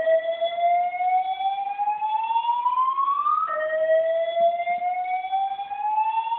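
Fire alarm speaker sounding a slow-whoop evacuation tone: a rising sweep about three and a half seconds long, heard twice, over a steady high tone.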